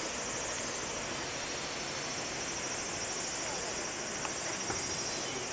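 A steady chorus of insects: a high buzz that pulses evenly throughout, over an even background hiss.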